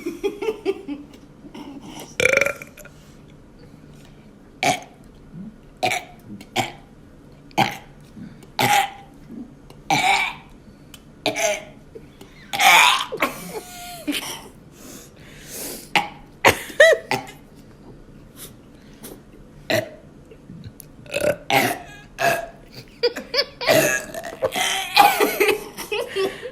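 A girl burping over and over: a long string of short burps, about one every second, with one longer drawn-out burp about halfway through and a quicker run of them near the end.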